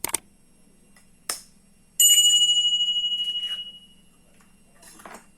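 A couple of sharp knocks, then a mixing bowl struck hard rings with a clear bell-like tone that fades away over about two seconds, as eggs are cracked against it for dough.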